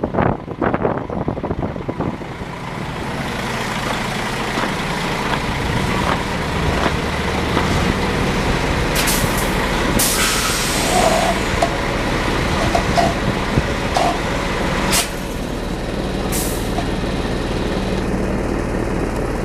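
Heavy vehicle running close by: a steady engine rumble that builds over the first few seconds, with sharp hisses about halfway through and again later.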